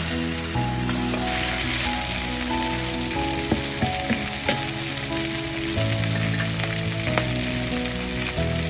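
Chicken pieces frying in hot oil with onions, a steady sizzle with a few light knocks in the pan. Soft background music with held chords.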